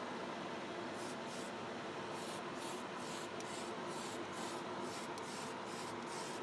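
Primer being sprayed onto a model car body in short, repeated bursts of hiss, about a dozen quick passes starting about a second in.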